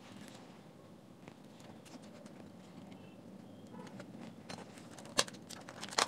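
Faint handling of a swollen lithium-polymer pouch battery as it is prised out of a power bank case: soft crinkling of the foil pouch and tape, then a few sharp clicks and crackles near the end as the pack comes loose.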